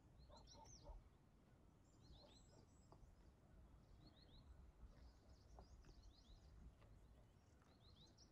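Faint birdsong in near silence: short chirps in quick runs of two to four, repeating every couple of seconds, over a low rumble.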